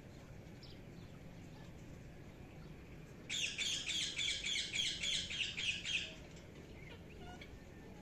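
Indian ringneck parakeet giving a loud burst of rapid, high-pitched repeated calls for nearly three seconds, starting about three seconds in. Faint scattered chirps come before and after.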